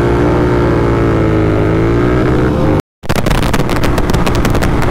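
Motorcycle engine and exhaust running loudly, the pitch wavering gently up and down. An abrupt cut just before three seconds in switches to a rougher engine sound full of rapid crackles.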